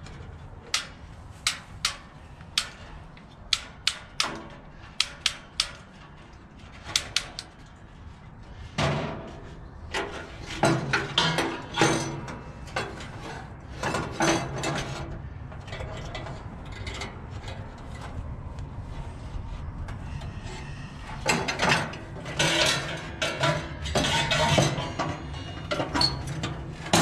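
Gas grill's push-button spark igniter clicking over and over, about fifteen sharp single clicks in the first seven seconds, as the electrode gap on the new burners is tested for a good spark. After that comes irregular metal knocking and clattering.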